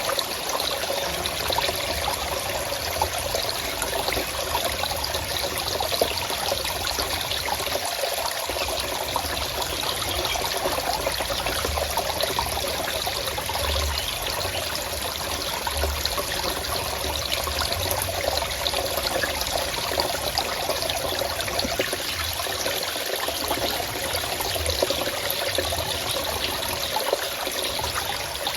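Water in a forest stream running and trickling steadily.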